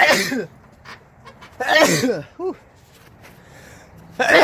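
A person sneezing three times, about two seconds apart, each a sudden burst that falls away in pitch.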